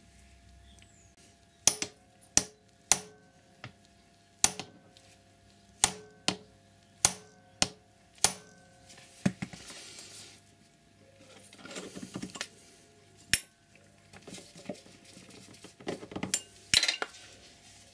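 Hammer blows on the punch of a Whale impact chain riveter, staking a solid rivet on a Tsubaki X-ring motorcycle chain: about ten sharp metallic taps with a short ring, half a second to a second apart, in the first nine seconds. Then scraping and clinking as the tool is handled and repositioned, with two more single taps.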